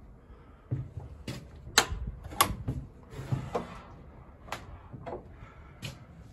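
A run of sharp knocks and clicks, about eight, roughly half a second apart, with a short scraping rustle about three seconds in, as a person walks through a doorway into a small wooden room.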